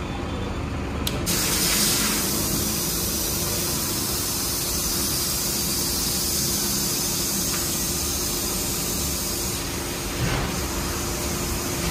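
A steady hiss starts suddenly about a second in and runs on over a low hum.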